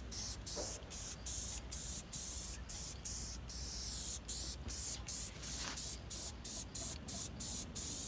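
Aerosol spray-paint can hissing in short, rapid bursts, about two or three a second with brief gaps between them, as primer-and-paint is sprayed onto bare steel.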